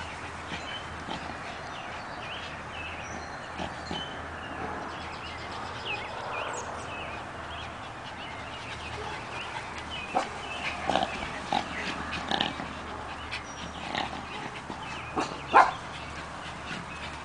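Two small Maltese dogs playing chase, making short, sharp vocal sounds in scattered bursts. The sounds come more often in the second half, and the loudest is near the end.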